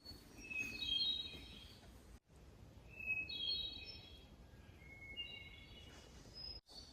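Bird calls: three short bursts of high, clear notes about a second apart, over a faint outdoor hiss, with the sound cutting off abruptly twice.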